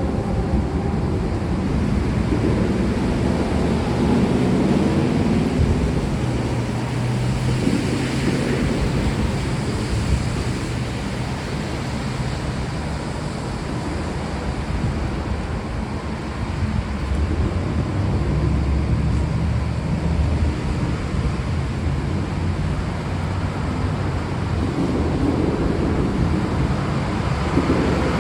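Steady rain hissing, with low rumbles of distant thunder swelling and fading several times.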